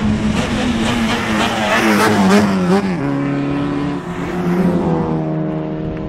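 A race car's engine passing at speed, loudest about two seconds in, its note wavering and then dropping in pitch about three seconds in as it goes by, followed by a steadier engine drone.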